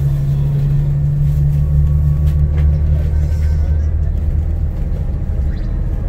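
Low steady rumble of a car's engine and tyres on the road, heard from inside the moving car; its low hum fades a little after halfway.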